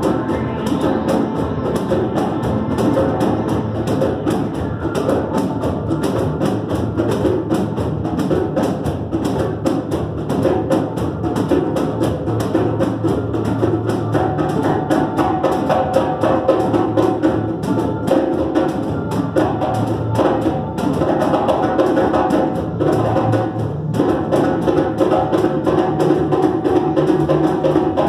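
A large wooden barrel drum beaten in a quick, steady rhythm together with an electric keyboard played through an amplifier, in a live hand-drum jam.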